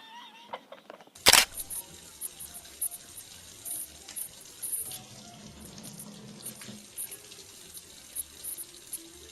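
Running water, a steady rush, with a sharp knock about a second in.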